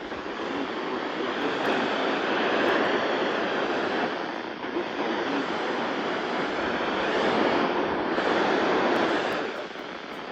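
Rushing static hiss from a weather radio receiver, swelling and easing over a few seconds and dropping back near the end.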